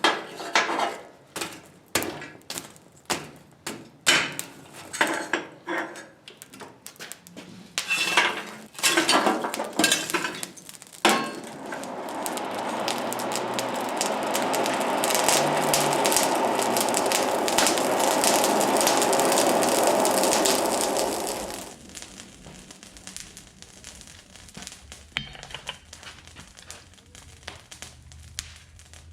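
Steel pieces and tools clinking and knocking against metal, irregular sharp strikes for about ten seconds. Then a steady rushing machine noise builds up, runs for about ten seconds and cuts off suddenly, followed by a few faint knocks.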